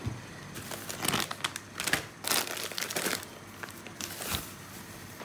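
Thin plastic grocery bags and packaging crinkling and rustling as they are handled, in irregular crackles.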